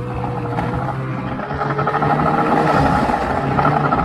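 Snowmobile's 850 E-TEC two-stroke engine running under throttle, a steady drone over track and ride noise that gets a little louder in the middle.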